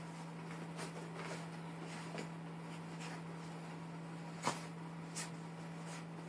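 Maltese dog rolling and wriggling on a towel on a wooden floor: scattered soft rustles and light knocks, the sharpest about four and a half seconds in, over a steady low hum.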